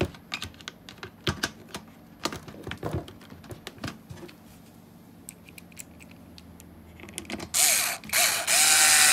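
Plastic clicks and knocks as the hinge cover of a multicooker lid is handled and pressed into place, then, about three-quarters of the way in, a cordless screwdriver whirs in short bursts, driving the cover's screw back in.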